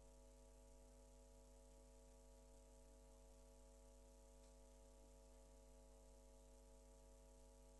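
Near silence: faint room tone with a steady electrical hum.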